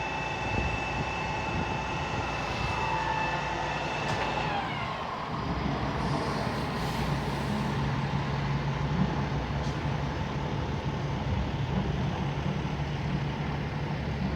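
Heavy diesel machinery running: a steady whine that drops in pitch and stops about four seconds in, then a steady low diesel engine drone.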